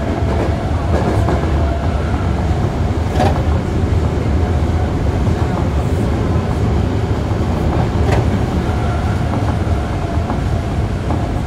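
Toei Asakusa Line 5300-series subway car running, heard from inside the car above its VVVF inverter: a steady rumble of wheels and running gear, with two sharp knocks about three and eight seconds in.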